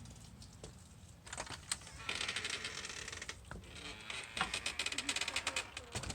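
Rapid scratching and clicking: quick runs of small strokes that start about a second in and grow louder, with a second dense run from about four seconds in.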